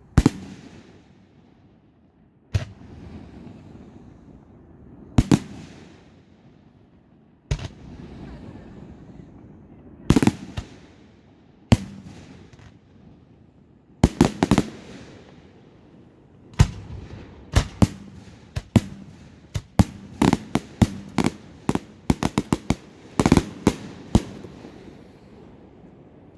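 Fireworks going off: sharp bangs of bursting shells, a couple of seconds apart at first, then coming faster in quick clusters in the second half, each bang trailing off in a fading hiss.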